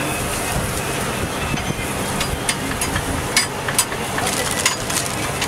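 Busy street ambience: a steady hum of traffic and bustle with scattered sharp clicks and clatter.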